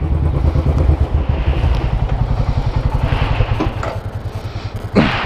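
Motorcycle engine idling with a steady, even low pulse. A brief sharp sound near the end.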